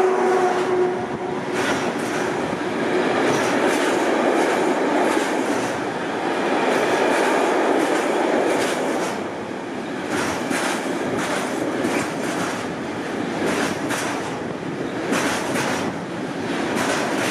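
Container freight train rolling past at speed: a steady rumble of wagon wheels on the rails, with the clickety-clack of wheels striking rail joints, in quick clusters later on. A hum of several steady tones from the passing electric locomotive dies away within the first second.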